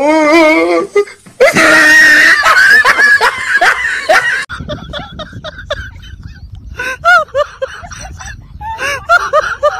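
A man laughing and yelling, then short bursts of voice after a cut.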